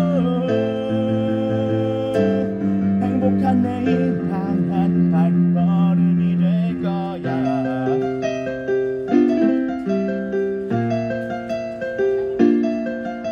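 Casio electric keyboard playing piano-voiced chords under a man's singing voice, which holds a wavering note near the start and continues over the chords. From about seven seconds in the voice drops out and the keyboard plays a solo passage of separate struck notes.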